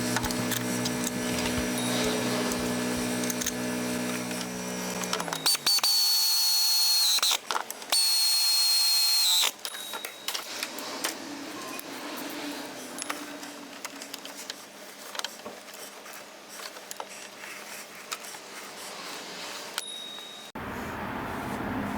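A power tool running in two loud, high-pitched whining bursts of a second or two each, about six and eight seconds in, after a steady hum, with scattered clatter of work afterwards.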